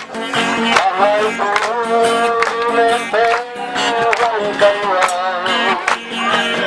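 A man singing into a microphone over amplified backing music with guitar and a steady beat.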